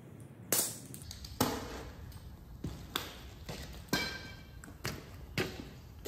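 A run of sharp metal clanks from tyre-fitting tools and a steel truck wheel rim, about seven knocks in six seconds, some ringing briefly.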